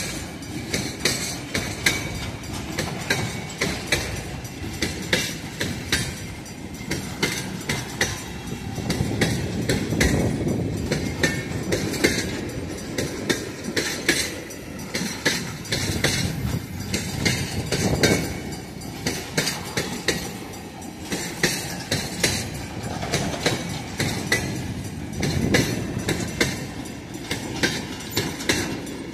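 A freight train of empty tank cars rolling past, its steel wheels clicking rhythmically over the rail joints over a low rumble, with the empty cars clanking.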